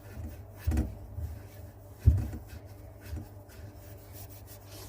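Abrasive rubbing on a copper pipe as it is cleaned up for a compression fitting, with a few dull knocks, the loudest about two seconds in.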